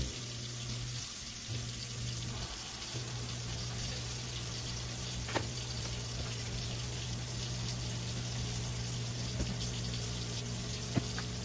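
Faint rubbing of a cloth wiping a glass-ceramic stovetop, over a steady low hum, with a couple of light taps.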